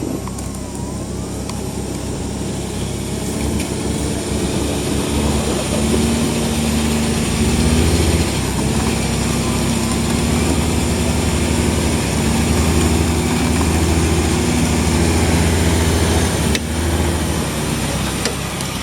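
Vehicle engine running, its pitch stepping up and down as it is driven, louder through the middle and dropping briefly near the end.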